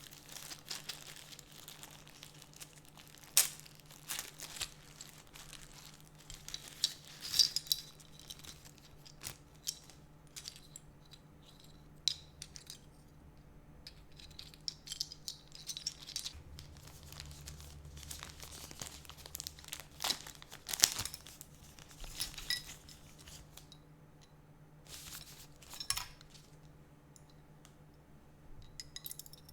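Keyboard packaging being handled during an unboxing: irregular crinkling and rustling of wrapping, with scattered sharp clicks and light clinks.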